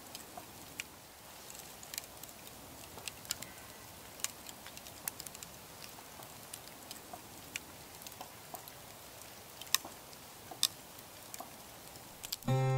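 Campfire embers crackling: irregular sharp ticks and pops, a few a second, over a faint hiss. Acoustic guitar music comes in right at the end.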